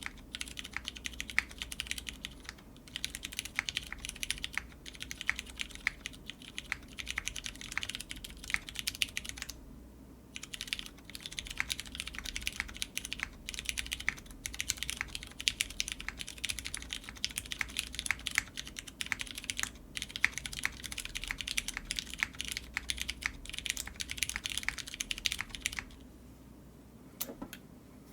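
Fast continuous typing on a Singa Kohaku mechanical keyboard with lubed MX Brown tactile switches on a polycarbonate plate and GMK keycaps, with a brief pause about ten seconds in and the typing stopping a couple of seconds before the end.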